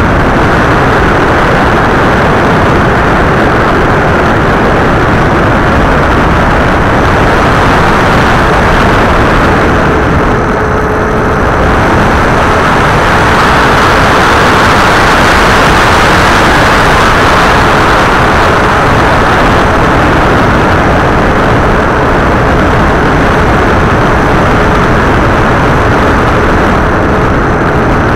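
Onboard recording from an FPV model aircraft in flight: a loud, steady rush of wind and propeller noise, with a faint steady hum from the motor joining about seven seconds in.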